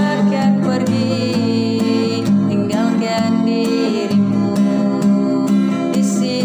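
Pop ballad music led by guitar, playing steadily with a gliding melody line over held chords.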